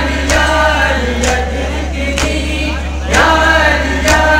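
Men chanting together in a mourning chant, amplified through a microphone and PA, with a sharp beat about once a second and a steady low hum underneath.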